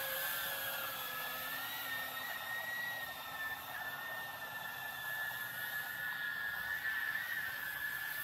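Small FPV cinewhoop drone's brushless motors and propellers whining in flight: a steady high whine whose pitch wavers slightly.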